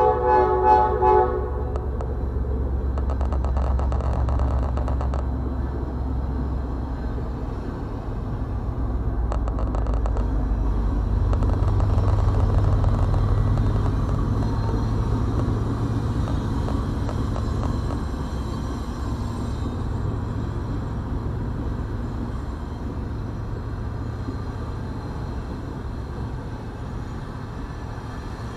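Freight train horn sounds a short blast in the first second or so. Then diesel locomotives rumble past, followed by double-stack container cars rolling by, with bursts of rapid clicking early on. The rumble is loudest while the locomotives pass, about halfway through.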